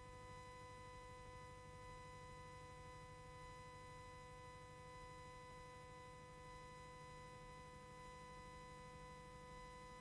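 Near silence: a faint, steady electrical hum with a few thin steady tones and no other sound.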